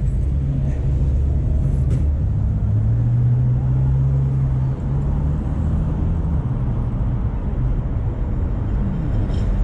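Street traffic with a motor vehicle's engine running close by: a steady low hum that drifts slightly in pitch over a rumble of road noise.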